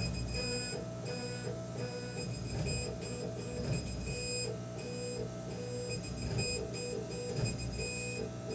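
K40 CO2 laser cutter's gantry stepper motors whining in short tones that change pitch and break off about twice a second as the head traces a finger-jointed outline, over a steady low hum.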